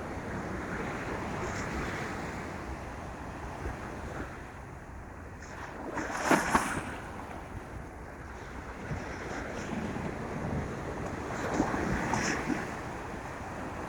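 Ocean waves washing onto a beach with wind blowing across the microphone. There is a short, sharp surge about six seconds in and a broader swell near the end.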